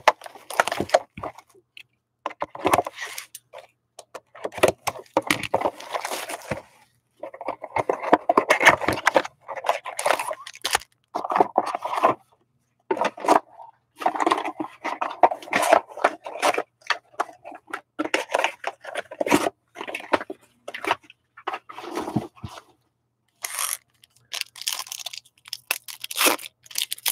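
A 2019-20 Upper Deck Allure hockey card box being opened and its foil packs handled and torn open: irregular crinkling, tearing and scraping of cardboard and wrappers.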